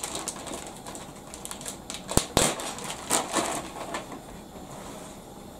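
Plastic bag of grated cheese rustling and crinkling as it is handled, with scattered small clicks and two sharp knocks close together about two seconds in.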